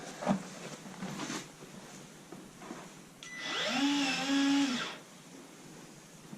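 A handheld power drill runs for about a second and a half, likely driving a bolt: it spins up to a steady whine, dips briefly midway and stops. A few light knocks of handling parts come before it.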